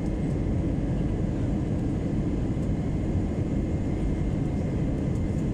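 Steady low rumble of a jet airliner's engines and rushing air, heard inside the passenger cabin during the descent to land, with a faint steady high whine over it.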